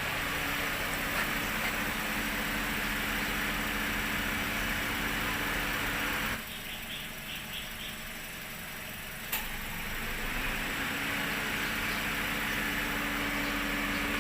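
Toyota Vios 1NR-FE four-cylinder engine idling, being checked for a cylinder 2 misfire (rough idle, code P1605) right after a new ignition coil was fitted to that cylinder. The steady running hum drops quieter for about three seconds in the middle, ending with a sharp click before the hum returns.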